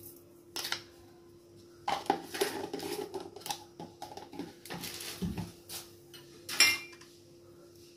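Metal spoon knocking and scraping against a metal pressure cooker pot: scattered clinks, a busy stretch of clatter in the middle, and one sharp clink with a brief metallic ring about six and a half seconds in.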